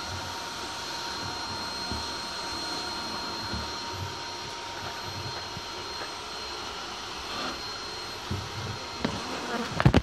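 Honeybee swarm buzzing as a bee vacuum's hose sucks the bees off the wall, over the steady hiss and faint whine of the vacuum. A sharp knock near the end.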